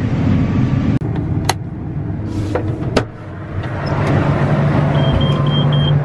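Combine harvester running, heard from inside the cab, with a couple of sharp clicks. Near the end come four short high beeps: the cab's warning alarm going off as the machine is shut down with parts still spinning.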